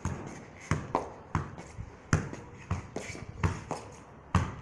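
Soccer ball being juggled: a string of dull thuds as it is struck by foot and head, unevenly spaced at about two a second.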